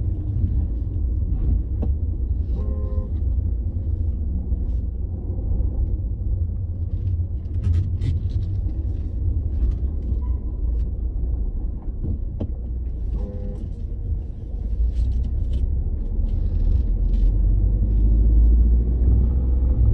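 Renault Clio RS IV with a steady low engine rumble, broken twice, about three and thirteen seconds in, by a short motor whine lasting about half a second. The whine fits the strange steering motor noise the owner hears occasionally as the wheel returns, which he wonders may be a failing steering pump. The rumble grows louder near the end.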